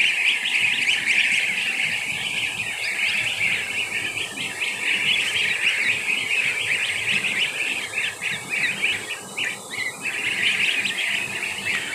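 A large flock of goslings peeping all together: a dense, unbroken chorus of shrill, high peeps from hundreds of young birds.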